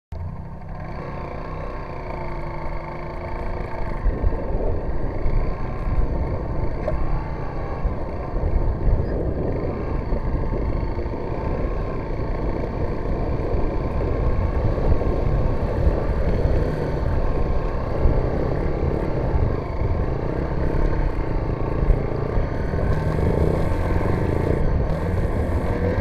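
Dirt bike engine running at low speed under load, its pitch rising and falling, over a dense rushing of water churned and splashed by the wheels as the bike wades a shallow river.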